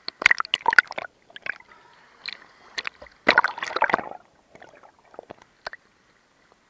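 Water splashing and sloshing in irregular bursts, with a dense cluster in the first second and another about three to four seconds in.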